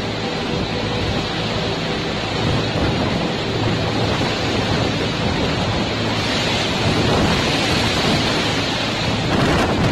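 Cyclone wind and heavy rain in a steady, loud roar, swelling a little in the last few seconds.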